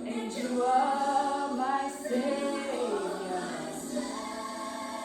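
Vocal music: a choir of voices singing long held, sliding notes in a slow song, with little or no instrumental backing.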